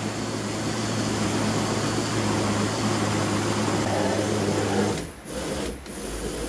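Countertop electric blender running steadily, its motor humming as it purées blackberries into thick pulp, then switching off about five seconds in, followed by a brief low rumble.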